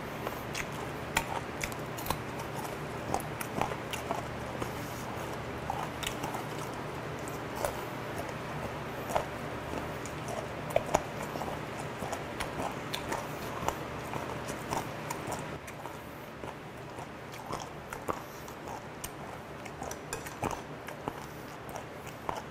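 Close-miked chewing and biting of steamed yellow stingray with its soft, chewable cartilage bones: irregular wet mouth clicks and small crunches over a low steady hum.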